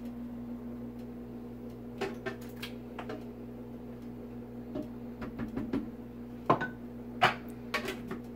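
Clinks and knocks of a ceramic bowl and spatula against a blender jar as egg yolks are poured and scraped in. Near the end come two sharp clacks as the blender lid is put on. A steady low hum runs underneath.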